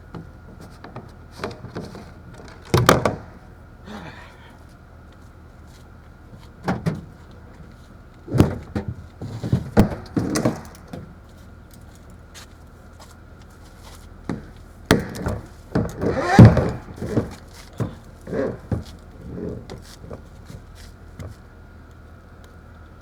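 Irregular knocks, thuds and clunks, loudest in a cluster about sixteen seconds in, from gear being handled at a truck while setting up to fill its water tank. Under them runs a faint steady hum.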